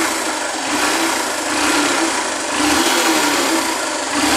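2009 Honda CG 125 Fan's single-cylinder four-stroke engine running, swelling and easing in level a few times. It runs quietly with a new cam chain fitted: the rattle of the badly slack old chain is gone.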